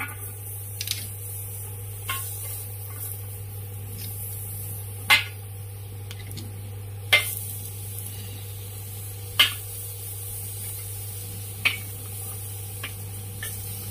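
Boiled clam shells set down one at a time on a non-stick pan, each a sharp short clack, about half a dozen of them a couple of seconds apart, over a steady low hum.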